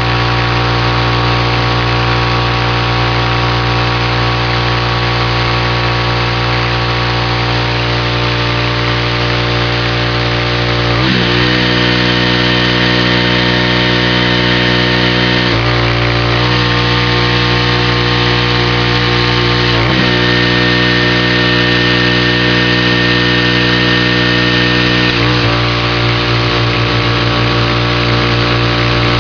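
Pressure washer running steadily while siding is sprayed, its engine note shifting abruptly four times, about every four to five seconds, with a high thin whine during two of those stretches.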